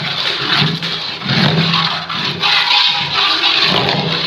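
A long metal ladle scraping and churning through a thick, wet spice mixture in a large aluminium pot, a continuous rough scraping and squelching.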